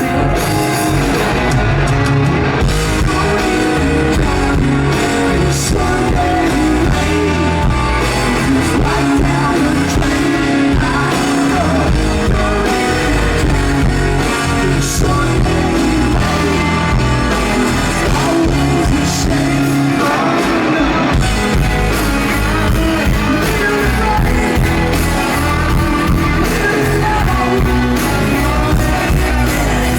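Rock band playing live, with electric guitars, bass and drums under a male lead vocal.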